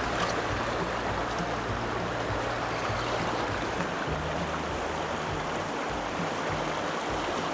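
Steady rush of a fast-flowing mountain stream, an even hiss of running water.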